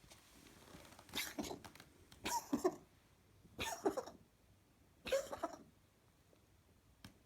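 Domestic cat coughing: four short hacking coughs over about four seconds, each a quick double or triple hack, with a coughing fit underway.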